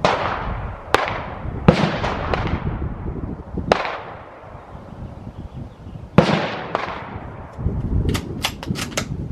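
A series of gunshots at a shooting range, several in quick irregular succession, each with an echoing tail. Near the end comes a quick run of sharp clicks.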